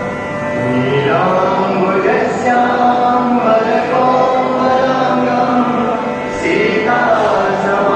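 Devotional Hindi bhajan: a voice singing long held, sliding notes over steady instrumental accompaniment.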